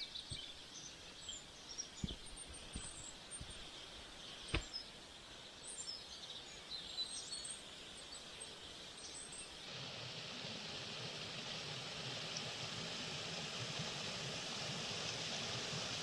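Small birds chirping over a faint hiss, with a few sharp knocks in the first half. From about ten seconds in, the rushing of a forest stream swells up and holds steady, growing slightly louder toward the end.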